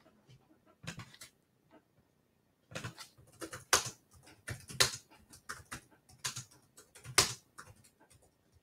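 Irregular sharp clicks and taps, a couple about a second in, then a denser run of several a second from about three seconds in until near the end.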